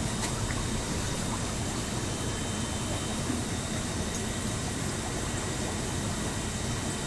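Steady hum and hiss of aquarium equipment running, with faint high steady whines over it.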